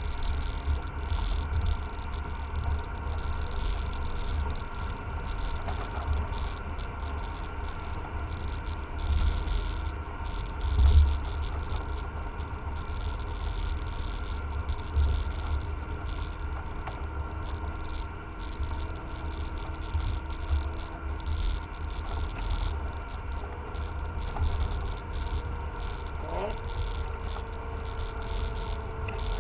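Inside a BMW sedan on the move: a steady low rumble of road, tyre and engine noise. Near the end a short note rises quickly in pitch, then settles into a steady tone that slowly drops.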